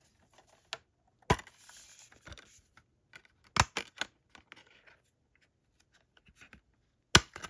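A metal SteelBook disc case being handled and opened: three sharp clicks, the loudest near the end, with a brief rustle or scrape after the first and light ticks in between.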